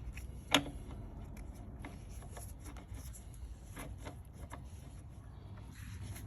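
Bicycle pedal being screwed into the crank arm by hand: light rubbing of metal on metal with scattered small clicks, and one sharp click about half a second in.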